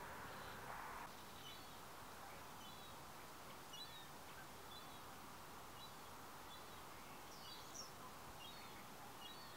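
Faint, short, high bird chirps, often doubled, repeating about once a second over a steady background hiss.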